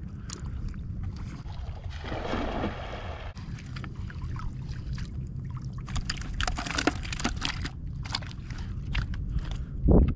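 Shallow water sloshing and splashing around wading legs and a cast-net catch of mullet, with scattered clicks and knocks over a steady low rumble. A rushing splash lasts about a second, starting two seconds in, and a heavy thump comes just before the end.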